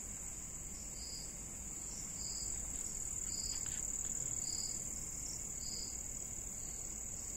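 Crickets chirping in a steady high trill, with a second, lower chirp repeating about once a second.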